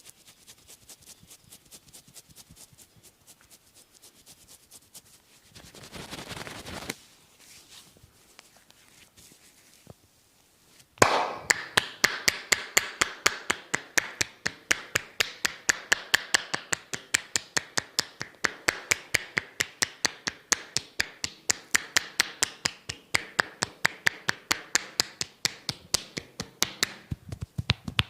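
Massage strokes: quick, faint taps at first, then from about eleven seconds in loud, fast, even hand slaps on the body at about five strikes a second.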